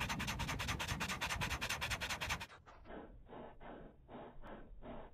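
A black Labrador panting rapidly, about eight to ten quick breaths a second. About two and a half seconds in, the panting turns slow and lower-pitched, two to three drawn-out breaths a second, as slow-motion playback stretches it.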